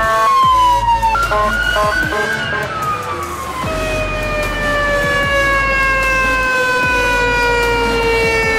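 Emergency vehicle siren sounding: a falling tone with short blasts in the first few seconds, then one long wail sliding slowly down in pitch for the rest of the time, with electronic music underneath.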